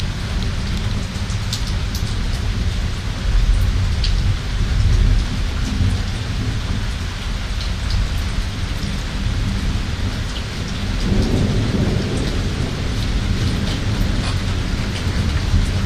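Steady heavy rain during a thunderstorm, with a low rumble of thunder running under it and swelling about two-thirds of the way through. Sharp ticks of individual drops hitting nearby surfaces are scattered through it.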